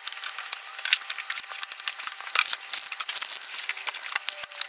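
Chef's knife cutting thin flanken-cut beef short ribs into chunks on a cutting board: an irregular run of sharp clicks and taps of the blade on the board, several a second.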